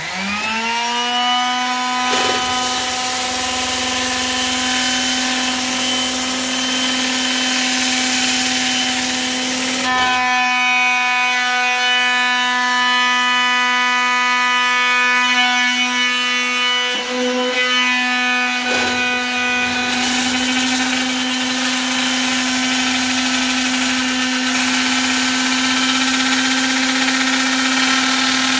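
A palm sander and a cordless drill-driven lathe sanding a spinning teak dowel. A motor spins up at the start and holds a steady whine, with the hiss of sandpaper on the turning wood that changes in strength about ten and twenty seconds in.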